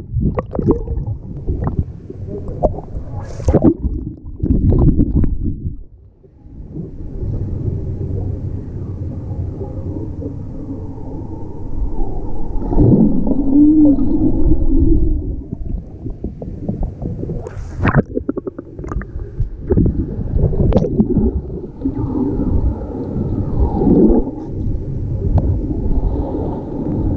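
Underwater sound from a GoPro submerged in a swimming pool: a steady muffled rumble and gurgle of moving water and bubbles. There are a few sharp knocks and now and then a muffled wavering tone, and the sound dips briefly about six seconds in.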